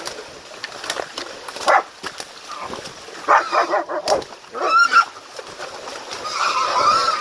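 Pig-hunting dogs holding a young wild boar: short animal calls, barks and squeals, in about four bouts, the last one longer and running to the end.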